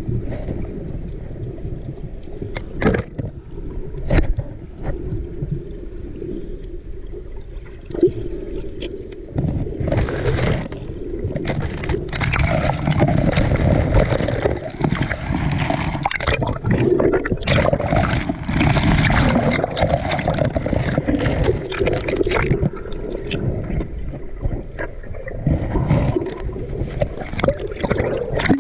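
Water sloshing, gurgling and splashing around a waterproof action camera as a diver goes back into the sea, with frequent knocks on the camera housing. It gets louder and busier about twelve seconds in, ending in a rush of bubbles underwater.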